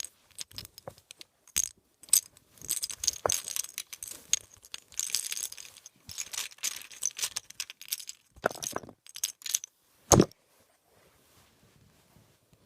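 Plastic Rubik's Cube pieces clicking and rattling against each other as they are handled, with one louder knock about ten seconds in.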